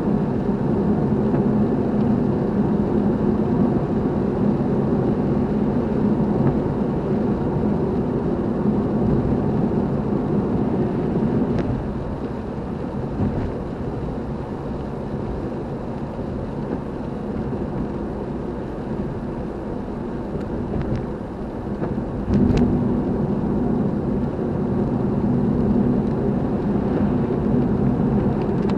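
Steady engine and road noise of a car being driven, a low hum that eases off about twelve seconds in and picks up again about ten seconds later, with a few faint clicks.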